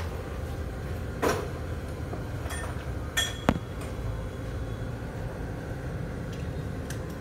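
A few sharp metallic clinks, one about a second in and two close together around three and a half seconds in, over a steady low background rumble.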